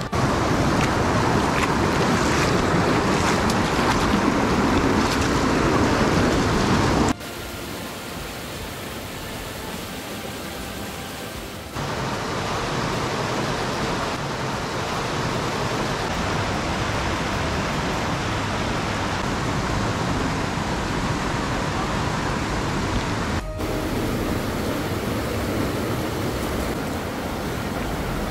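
Fast-flowing river rushing over rocks and rapids: a steady rush of water that drops and rises in loudness at a few sudden cuts, about 7 and 12 seconds in, with a brief dip near 23 seconds.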